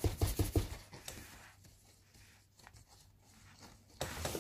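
Dusty plastic projector air filter being handled and rubbed by hand: a quick run of scratchy light knocks, about five or six a second, that stops about a second in, then a few faint clicks and a short rustle near the end.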